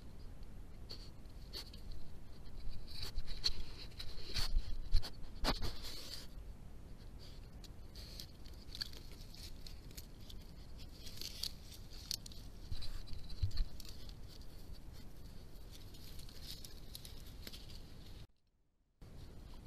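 A badger nosing and licking a trail camera up close, its snout and fur rubbing and knocking against the housing in scattered clicks and scrapes, loudest in the first six seconds. The sound drops out for about a second near the end.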